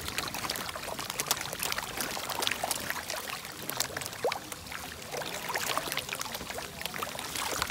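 Hundreds of koi churning at the surface of a pond. A dense, irregular patter of small splashes and wet plops as the fish push over one another and gulp at the water, begging for food.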